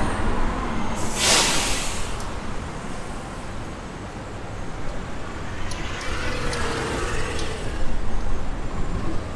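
Street traffic rumbling steadily, with a loud hiss lasting about a second, about a second in.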